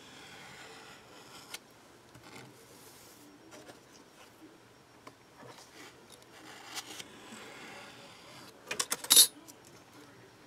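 Soft rubbing and scraping as a strip of polymer clay is pressed and trimmed against a clear cutting blank on a work surface, then a quick cluster of sharp clicks near the end, the loudest sound.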